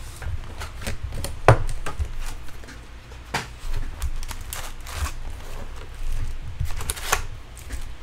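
Foil-wrapped Bowman baseball card packs and their cardboard box being handled, with the wrappers crinkling and packs knocking against each other and the desk: a run of irregular sharp crackles and taps.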